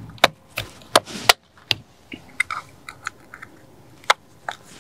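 A series of sharp clicks and knocks, irregularly spaced with a cluster in the first second and a half, as a wheel centre cap is handled and pressed into the centre bore of an AMG alloy wheel.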